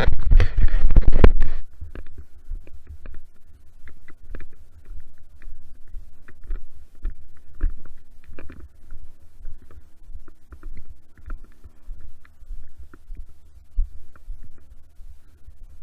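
Loud rustling and rumble on a worn camera's microphone for about the first second and a half, then a low, steady rumble with scattered small clicks and snaps.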